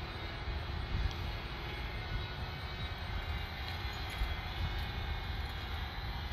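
Steady low rumbling noise with a fainter hiss above it, uneven and gusty, with no distinct events.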